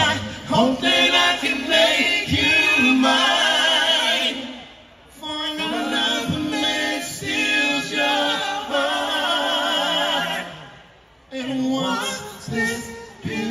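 Live R&B vocalists singing in harmony, voices carrying the music with little else under them, long notes held with vibrato; the singing breaks off briefly twice between phrases.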